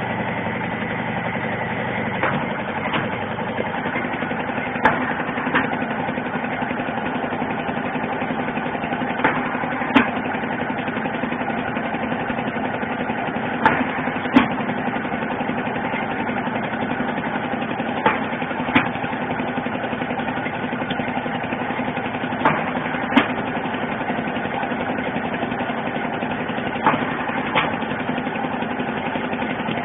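Eye-drop bottle cap sealing machine running with a steady motor hum. A pair of sharp mechanical clacks, about two-thirds of a second apart, comes round roughly every four and a half seconds as the machine cycles.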